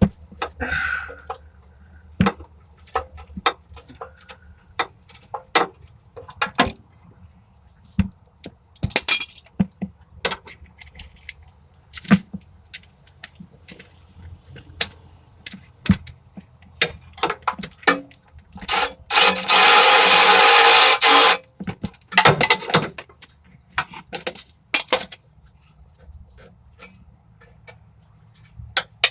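Hand wrenches clinking and knocking against metal while a torque converter bolt is worked loose: a scatter of separate metal clicks and clanks, with one loud, harsh noise lasting about two seconds a little past the middle.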